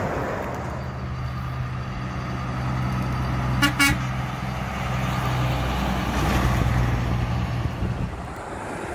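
Semi truck's diesel engine running as it drives past, with a short horn toot about three and a half seconds in.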